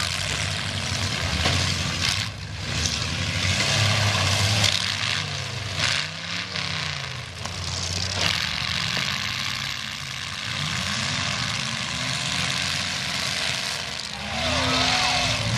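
Several demolition-derby car engines revving up and down as the cars push and ram each other in the dirt. A few sharp bangs of cars colliding come in the first half.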